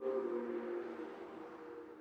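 Ambient music: a held chord of several steady tones that starts at once and slowly fades.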